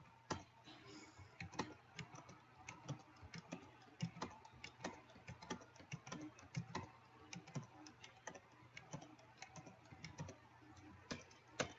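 Typing on a computer keyboard: faint, irregular key clicks, a few a second.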